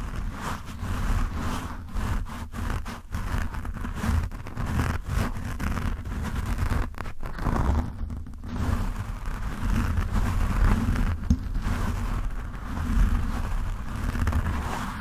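Fingertips scratching and rubbing roughly on a foam microphone windscreen right at the mic, a continuous, uneven scratching with a heavy low rumble. It lets up briefly about eight seconds in as the fingers lift off, then resumes.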